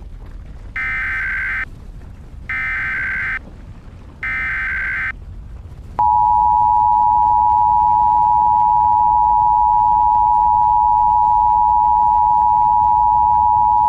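Emergency Alert System activation: three short bursts of SAME digital header data tones, each under a second, then the steady two-tone EAS attention signal (853 and 960 Hz) starts about six seconds in and holds. It marks the start of an emergency alert broadcast.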